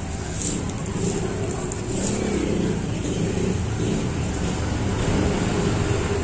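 A steady, loud low rumble like a running engine, with light crinkling of a plastic mailer bag being cut open.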